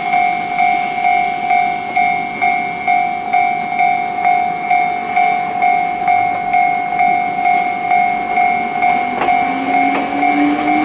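Electronic level-crossing warning bell ringing, a single tone struck about twice a second. From about nine and a half seconds in, the traction motors of a departing Ichibata 3000 series train (ex-Nankai 21000) add a low rising whine as it pulls away, with a few clicks.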